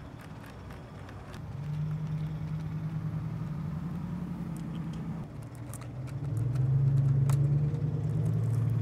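A low, steady motor hum runs for a few seconds, breaks off briefly, then runs again louder and cuts off abruptly just at the end. Faint scattered clicks sound alongside.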